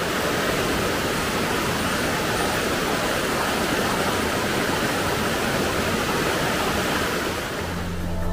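Steady rushing of river water flowing over rocks. Music comes in near the end.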